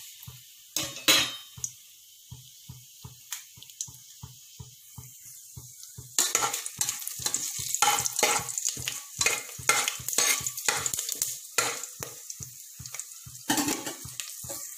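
Whole spices (bay leaf, cloves, star anise) sizzling and crackling in hot ghee and oil in a pressure cooker, with a metal clatter about a second in. The spattering grows louder and busier about six seconds in.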